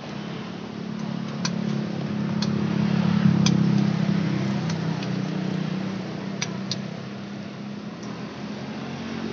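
A few light clicks of a spoon against a plastic tub and the cast-iron mold pan as batter is spooned into its cups. Under them runs a low motor hum that swells about three seconds in and then fades.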